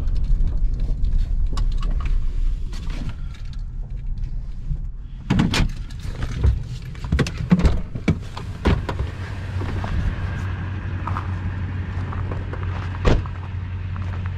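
Toyota Tundra pickup rolling slowly over a gravel forest road, heard as a low rumble from inside the cab. About five seconds in it stops, followed by a run of clunks and knocks as the door is opened and the driver climbs out, with one louder thump near the end.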